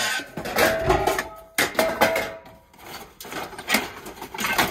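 Metal hubcaps clattering and scraping against one another as they are shifted in a pile, a series of irregular knocks with a brief metallic ring after some of them in the first half.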